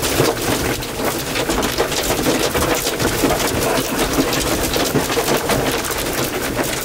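Hail and heavy rain pelting a vehicle's body and roof: a dense, steady clatter of small hits with no let-up.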